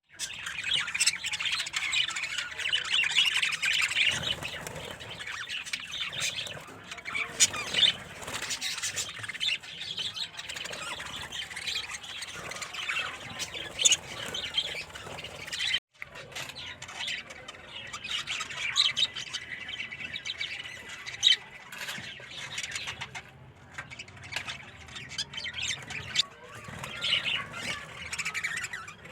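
A flock of budgerigars chattering and squawking, a continuous busy mix of warbles and sharp calls, broken off for a moment about halfway through.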